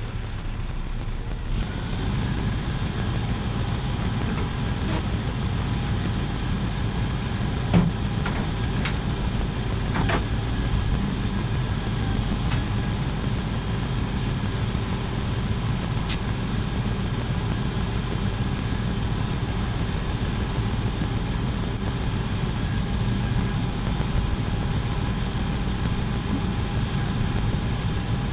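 Heavy truck's diesel engine running steadily, with a steady high whine over the low rumble and a few short clicks.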